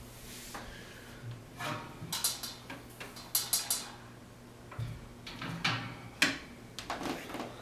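A 1950s Belco 16-inch box fan being handled and turned around while its blade coasts down after switch-off: irregular clicks, knocks and rattles over a faint steady low hum. The owner puts the fan's rattle down to worn motor bearings or a blade loose on the hub.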